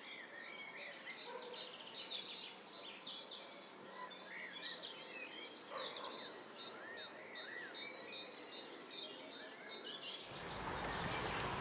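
Several wild birds singing and chirping in open countryside, with short chirps and repeated arched notes over a thin, steady high tone. About ten seconds in, this cuts abruptly to a louder, even rushing noise.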